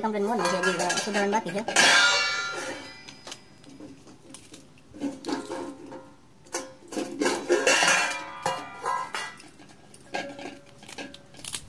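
Small kitchen knife cutting green chillies over a steel plate: irregular clicks and clinks of the blade and chilli pieces on the metal. A voice is heard briefly at the start.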